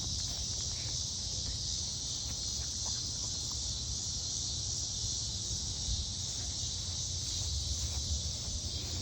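Steady high-pitched insect chorus outdoors, a constant hiss-like trill over a faint low rumble.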